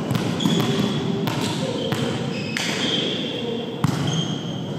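A volleyball being hit and bouncing on a hardwood gym floor: several sharp smacks that echo through the hall, with short high sneaker squeaks in between.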